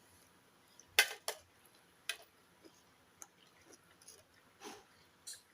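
Scattered sharp clicks and knocks of eating: spoons and dishes tapping and clattering, about six in a few seconds, the loudest about a second in.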